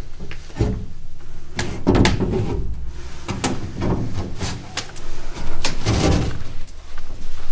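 Repeated knocks, bumps and scrapes of a person climbing up through a closet into the attic, body and hands against the wooden panels and boards. The loudest thud comes about six seconds in.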